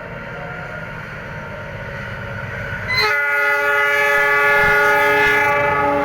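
Diesel locomotive of an approaching passenger train, its engine rumble growing louder, then sounding its multi-tone air horn from about halfway through, held for about three seconds: the semboyan 35 horn signal that the train is about to pass.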